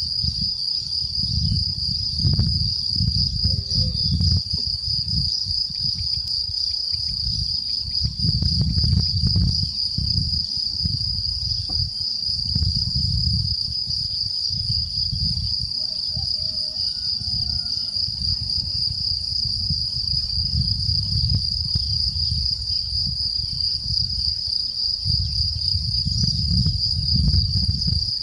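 Crickets chirring steadily and high-pitched without a break, with gusts of wind buffeting the microphone as low rumble that comes and goes.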